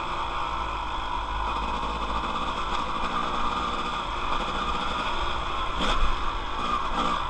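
Dirt bike engine running steadily under way, with a brief change in pitch about six seconds in.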